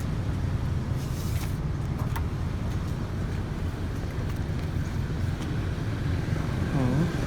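A motor vehicle's engine running steadily at low revs, a constant low rumble with street traffic around it.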